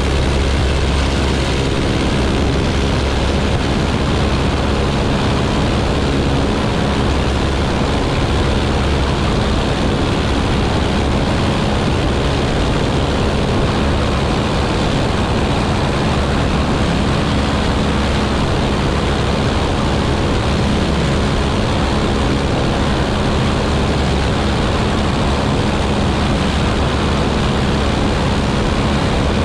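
Walter Minor 4-III four-cylinder inverted inline engine and propeller of a Bücker Jungmann biplane running steadily at climb power just after takeoff, with a continuous rush of airflow over the outside-mounted microphone.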